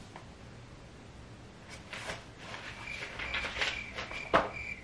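A pen scratching on notebook paper, with paper handling, starting a couple of seconds in. A high chirping tone in short repeated pulses joins in during the second half, and there is one sharp click near the end.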